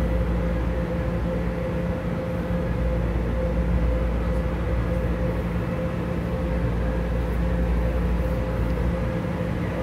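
Steady interior hum of a Las Vegas Monorail car standing at a station: a constant low drone with a held mid-pitched tone over it.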